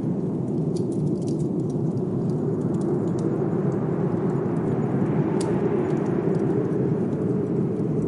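Steady rush of blizzard wind that swells in a gust around the middle, with the light crackle of a wood fire; one sharper pop about five seconds in.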